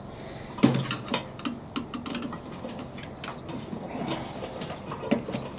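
Screwdriver working a screw out of a microwave oven's sheet-metal base plate, the screw holding the high-voltage diode's ground lead: irregular clicks and scrapes of metal on metal.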